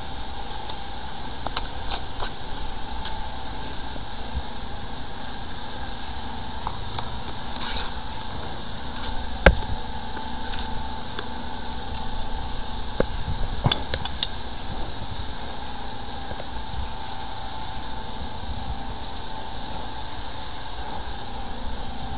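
Steady mechanical hum, with scattered clicks and knocks as plastic floor-drain parts are handled by gloved hands; the sharpest knock comes about nine and a half seconds in.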